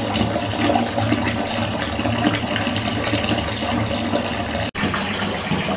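Bath tap running into a filling bathtub: a steady rush and splash of water. It cuts out for an instant about four and a half seconds in.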